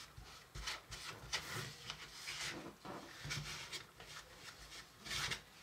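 Wooden spoon scraping and pressing crumbly cookie dough against the side of a small plastic mixing bowl: a string of faint, irregular scrapes, the loudest a little before the end.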